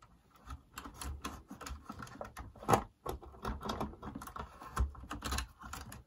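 Irregular light clicks and taps of plastic parts being handled and pressed into place inside the opened cabinet of a Philips ARC33 radio cassette recorder as its cassette mechanism is refitted, with one louder click near the middle.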